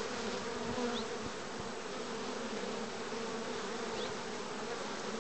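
Steady hum of many honey bees flying in and out of a hive entrance, the heavy traffic of a strong colony bringing in pollen.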